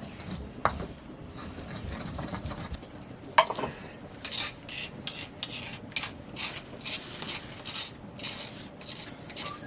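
Metal cookware being handled: a sharp ringing clank about three and a half seconds in, then a series of short scraping strokes like stirring in a metal pot.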